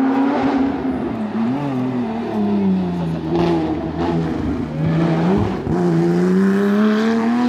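Porsche 911 rally car's flat-six engine taking a tight hairpin. The pitch falls as it brakes in, with a short blip about a second and a half in, then stays low through the turn and rises steadily near the end as the car accelerates out.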